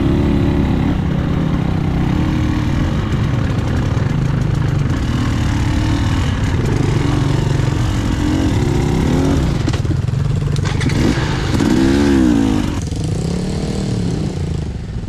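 Enduro motorcycle engine running under way, revving up and dropping back several times in the second half.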